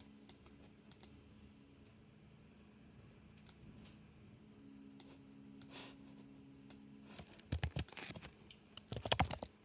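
Computer mouse clicks, a few scattered at first, then a quick burst of keyboard typing near the end as a search term is typed. A faint low hum sits underneath.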